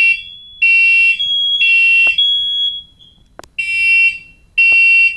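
Smoke alarms sounding on test. One gives the temporal-three evacuation pattern: three loud, shrill beeps about a second apart, a pause, then the next set of beeps starting. A second alarm holds a steady, slightly higher tone that stops about three seconds in, and a few sharp clicks fall in between.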